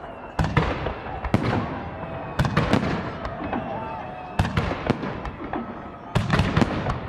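Fireworks shells bursting in the sky in repeated volleys: clusters of sharp bangs every second or two, with crackling and rumble between them.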